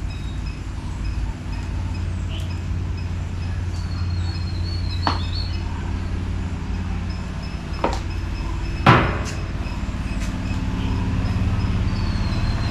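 A steady low hum with a few sharp clicks and knocks from metal forceps and a plastic bottle being handled on a stainless-steel table. The loudest knock comes about nine seconds in. Faint high chirps come around four seconds in and again near the end.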